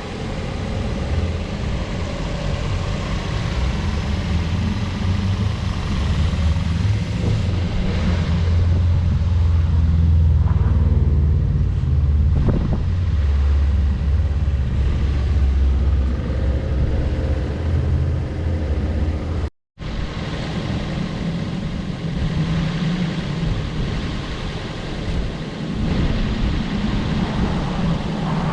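A steady low rumble with no clear source, cut off for a split second about twenty seconds in.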